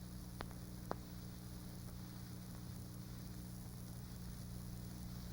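Faint steady hiss and electrical hum from an old recording's soundtrack, with two faint clicks about half a second and one second in.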